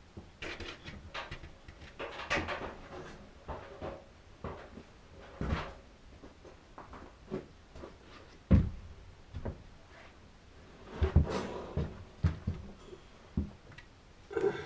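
Irregular knocks, clicks and rustles of hands-on work with tools and materials in a small room. The heaviest thumps come a little past halfway and again about three-quarters through.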